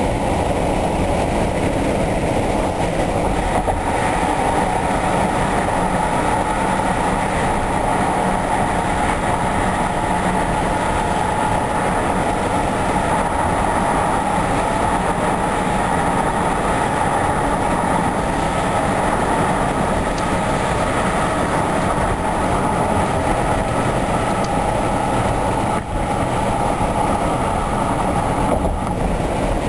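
Car driving at speed: steady tyre and road noise.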